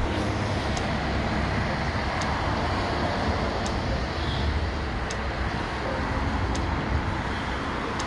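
Steady road traffic noise, a low rumble, with a garbage truck driving along the road. Faint sharp ticks repeat about every second and a half.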